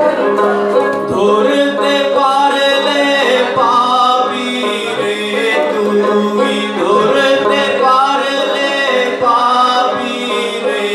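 A man singing while strumming a small plucked string instrument.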